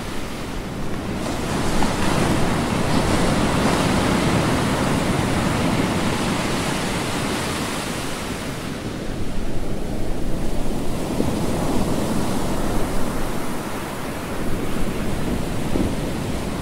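Recorded ocean waves: surf washing in and drawing back, a steady hiss of water that swells and eases every several seconds.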